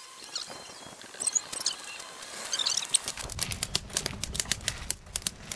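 Campfire of split kindling catching in a steel fire ring: a few scattered pops at first, then from about three seconds in a dense run of crackles over a low rumble of flame.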